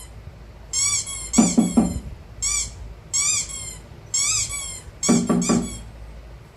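Dog whimpering in short, high, squeaky cries that rise and fall in pitch, repeated many times, with two quick runs of three or four low knocks among them.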